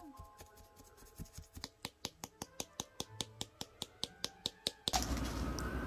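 Quiet background music: a ticking beat of sharp clicks that quickens, over a few held tones. About five seconds in it cuts off to a steady room hiss.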